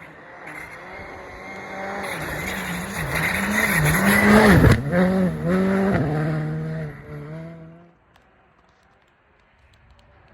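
Rally car approaching and passing at speed, its engine note rising and falling as the throttle is worked, loudest about halfway through with a sudden drop in pitch as it goes by, then fading away.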